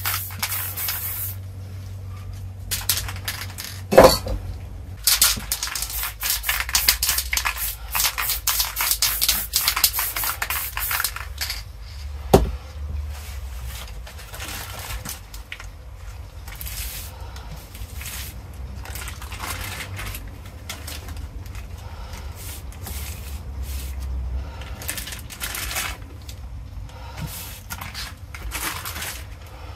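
Aerosol spray-paint cans rattling and hissing in short bursts, with two sharp knocks, the loudest about four seconds in and another about twelve seconds in. The sounds thin out after that, and near the end a crumpled sheet of paper is rubbed and dabbed against the canvas.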